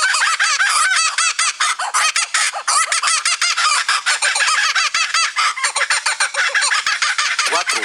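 Laughing kookaburra calling: a long, laugh-like cackle of rapid repeated notes that runs on without a break.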